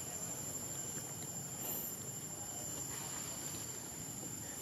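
Faint outdoor background: a steady hiss with a thin, constant high-pitched tone and no monkey calls.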